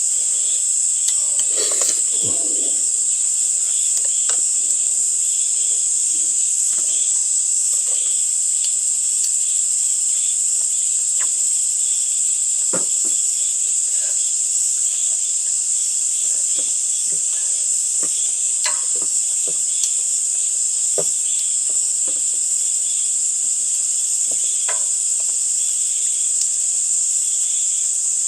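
A dense chorus of insects trilling steadily and loudly on a high pitch, with a second, pulsing insect call a little lower. Occasional light clicks and taps sound over it.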